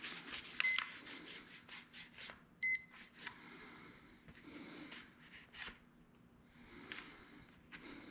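Two short high electronic beeps about two seconds apart, among light scraping and tapping sounds against a wall.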